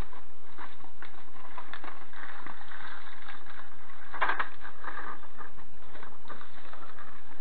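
Alaskan Malamute crunching dry food from an aluminium foil tray, with irregular clicks and crackles of the tray as it noses it. The loudest crunch comes about four seconds in.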